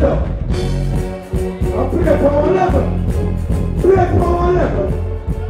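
Live reggae stage performance through a large sound system: a man sings into a microphone over a backing track with a heavy, steady bass line and beat.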